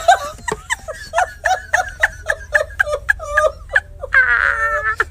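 A person laughing hard at a joke's punchline in quick, even 'ha-ha' pulses, about four or five a second, with a longer, held high laugh about four seconds in.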